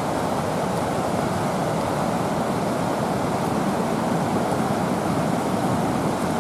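Steady rushing roar of the whitewater rapids at Ristafallet, an even wash of water noise that neither rises nor falls.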